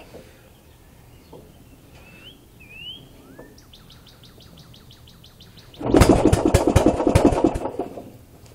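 A pull-start small engine is cranked with no choke and turns over and sputters for about two seconds without catching, starting about six seconds in; it is hard-starting in the cold and wet. Birds chirp before it.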